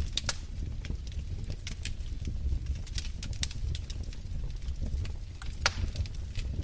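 Wood fire crackling in a fireplace: frequent irregular sharp pops and snaps over a low, steady rumble of burning, with one louder pop near the end.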